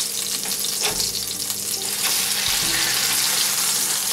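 Beef burger patty sizzling in a nonstick frying pan, a steady frying hiss of the second side cooking through. A silicone spatula scrapes against the pan and patty a few times in the first second.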